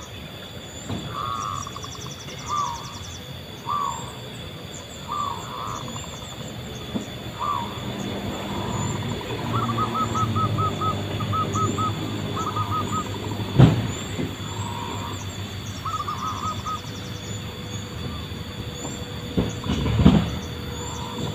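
Zebra doves (perkutut) cooing: short rolling coos repeated about every second and a half, then a quicker run of clipped coo notes a little before halfway, with thin high chirps of small birds above. A low rumble swells through the middle, a sharp click comes about two-thirds through, and a louder thump comes near the end.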